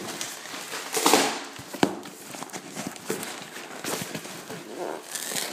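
Hands pulling and working at a cardboard box covered in packing tape: scattered scrapes, rustles and clicks, with a louder burst about a second in and a sharp snap just under two seconds in.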